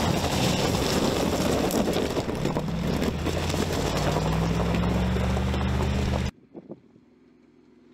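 2019 Mercedes-Benz G-Class engine running under load off-road, with a loud rushing noise over it; its pitch rises a little about three seconds in. The sound cuts off abruptly about six seconds in, leaving only a faint low hum.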